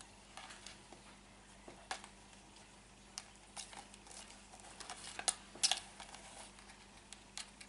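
Faint, scattered clicks and taps of a cat's teeth and claws on a plastic toy lightsaber as it bites and grapples with it, the loudest clicks a little past five seconds in.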